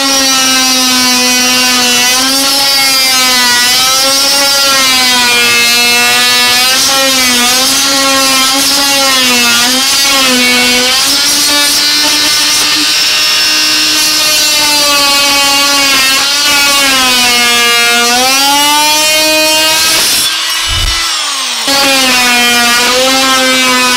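Oscillating multi-tool cutting through a wooden baseboard, a loud steady buzz whose pitch wavers as the blade is pushed into the wood. It cuts out for about a second near the end, then starts again.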